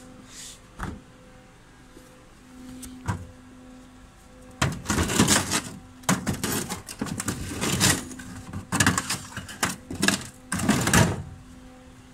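Refrigerator door opened and the plastic freezer drawer and kit packaging handled: a couple of sharp clicks, then about five seconds of loud rattling and scraping in several bursts as the calibration plates are put away.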